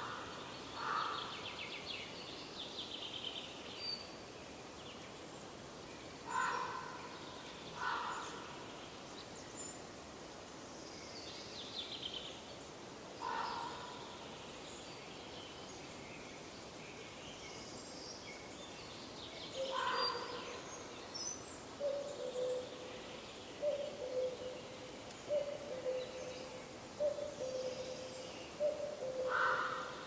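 Forest birds calling and singing over a steady background hiss: short calls every few seconds and higher trilling songs. In the second half a low two-note call, higher note then lower, repeats about every second and a half.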